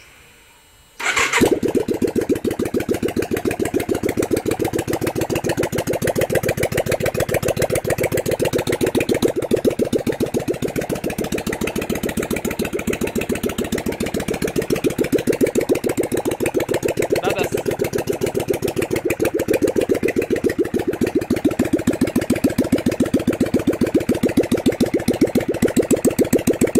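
Yamaha Virago XV535's air-cooled V-twin starting about a second in and then idling with its exhaust pipes removed, the open exhaust ports giving a loud, rapid chain of raw exhaust pulses.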